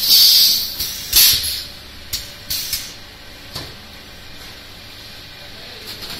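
Pneumatic food filling machine dosing portions of boiled brown cabbage through a hand-held nozzle: short hissing bursts of air, two loud ones at the start and about a second in, then a few shorter puffs, over a steady machine-room hum.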